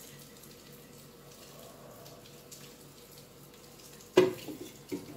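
Faint steady room noise, broken about four seconds in by a sudden short knock, with a smaller one just before the end.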